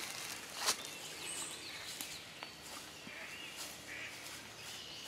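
Quiet woodland with faint, short bird calls, and one sharp knock or crunch about a second in.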